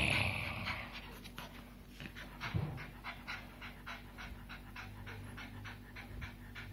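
A small dog panting quickly, about four breaths a second, while play-biting a gloved hand; a short louder huff opens it.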